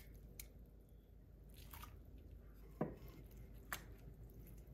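Grated pumpkin being scraped off a plate with a wooden spoon into a pot of milk: a few faint taps and soft squishes, the clearest a little over halfway through.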